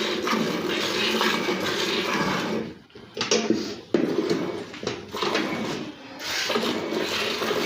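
Cow being milked by hand, streams of milk squirting into a pail, with brief pauses about three seconds in and again about six seconds in.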